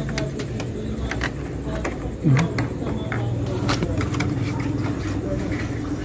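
Plastic clicks and knocks as a washing machine's water level pressure sensor is pushed out of its clips and pulled free, over a steady low hum.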